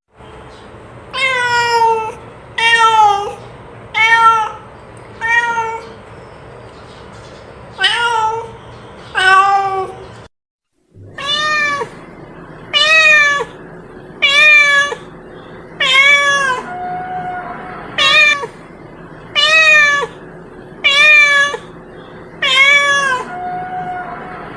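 A cat meowing over and over, one high-pitched meow roughly every second, with a short silent break about ten seconds in.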